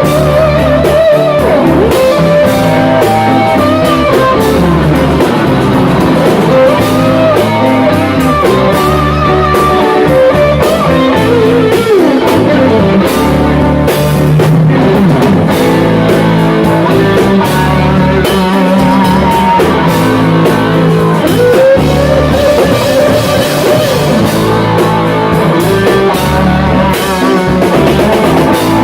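Live rock band playing: electric guitars over bass and a drum kit, with guitar notes bending up and down.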